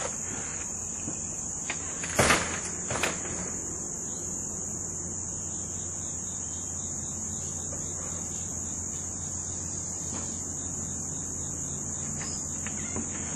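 Steady, high-pitched chorus of insects such as crickets, unbroken throughout, with two short, sharp handling noises about two and three seconds in.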